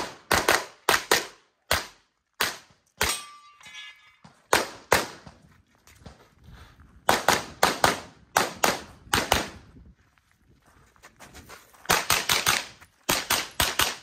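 Pistol shots fired in quick pairs and short strings, with pauses of a second or two between groups of shots.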